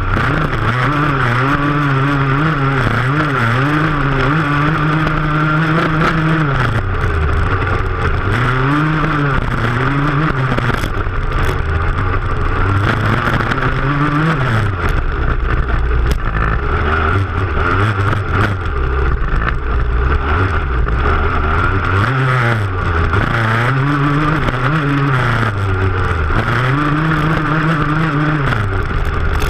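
Racing vehicle's engine at high revs, climbing and dropping back again and again as the driver shifts and lifts off over the rough stubble-field track, with a steady rush of wind and ground noise.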